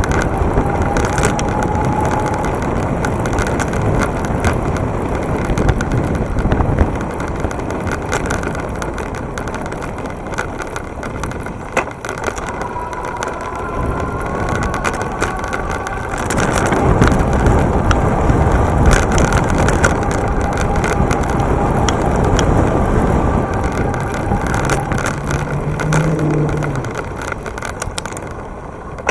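Riding noise from a camera mounted on an electric bike: steady wind and tyre rumble with frequent knocks and rattles over rough pavement. A faint whine rises in pitch about a second in, and again a little before halfway.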